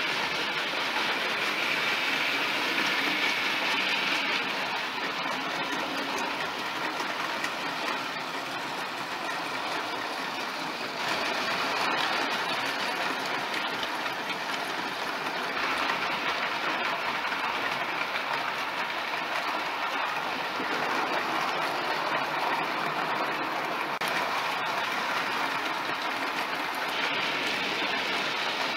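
A long OO gauge model freight train hauled by a model 9F locomotive, rolling past on the track: a steady running noise of many wagons' wheels on the rails.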